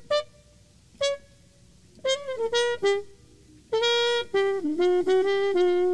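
Music: a solo horn melody played in short phrases of separate held notes with gaps between them, then a longer run of notes near the end.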